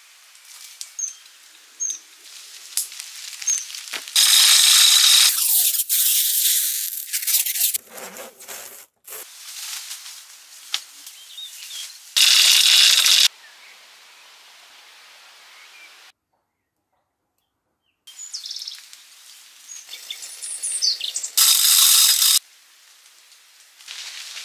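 Small birds chirping faintly in woodland. Three loud scratchy noises of about a second each come about 4, 12 and 21 seconds in, among lighter clicks and rustling. The sound cuts to dead silence for about two seconds midway.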